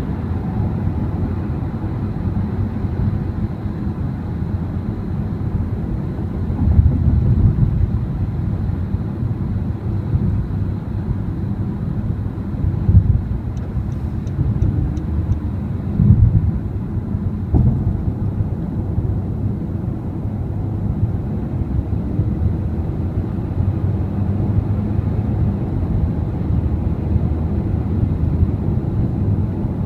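Car driving at highway speed, heard from inside the cabin: a steady low rumble of tyre and road noise, with a few brief louder bumps.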